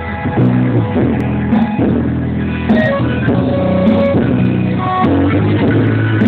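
Rock music with guitars and bass playing loudly through a Volkswagen Saveiro's car sound system.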